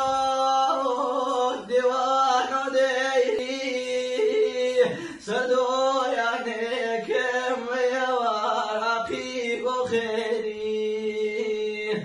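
A single voice singing a slow, unaccompanied melody with long held, wavering notes.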